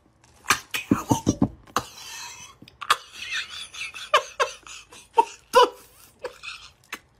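A person laughing in a string of short breathy bursts, with a few sharp clicks in the first two seconds.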